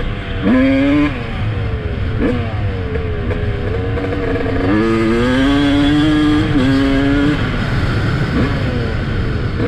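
Single-cylinder two-stroke engine of a 2007 Yamaha YZ250 dirt bike, revving hard. Its pitch jumps up sharply about half a second in, then climbs in a longer pull from about five seconds in and drops back near seven seconds.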